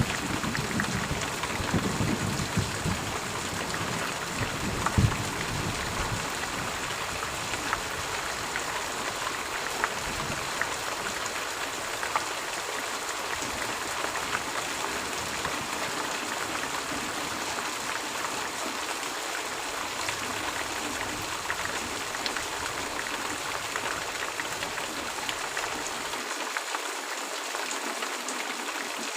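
Steady rain falling, an even hiss with many fine drops pattering. A low rumble in the first few seconds fades away.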